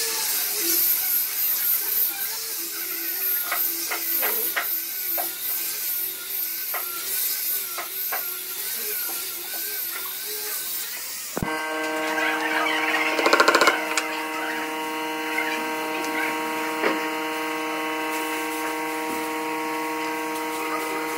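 An angle grinder with a sanding disc runs against a wooden tabletop, giving a steady high hiss with a wavering whine. About halfway through this stops abruptly. A steady hum of several held tones takes over, with a brief louder noisy patch soon after.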